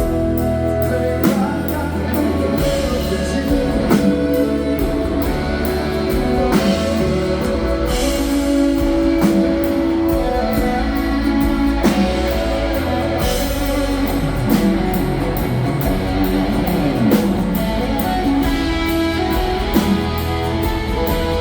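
A live country-rock band plays an instrumental passage of a waltz, with guitars over a steady drum beat.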